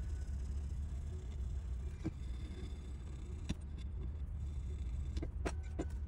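Foam-tipped swab rubbing old thermal paste off an aluminium heat sink: a faint scrubbing over a steady low hum, with a few sharp clicks, most of them near the end as the heat sink and swab are handled.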